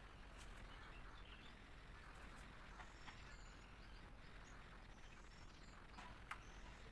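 Near silence: a faint steady hiss of room tone with a few soft clicks.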